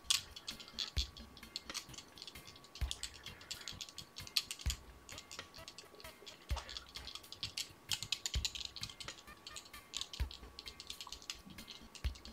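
Silk thread being wrapped by hand onto a salmon-fly hook held in a fly-tying vise, building up the underbody. A steady run of small clicks and rustles, with a soft low thump about every two seconds.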